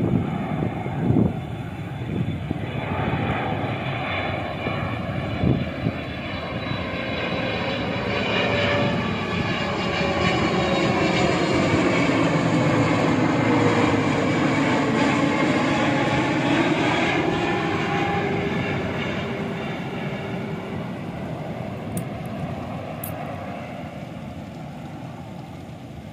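Jet engines of a Boeing 777-300 on landing approach passing low overhead, gear down. The rushing jet noise builds to its loudest about halfway through, with whining tones that fall in pitch as the aircraft goes by, then fades as it moves away.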